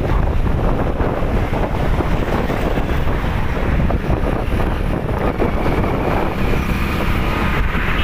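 Heavy wind buffeting the phone's microphone, with road and engine noise underneath, from a vehicle travelling at speed.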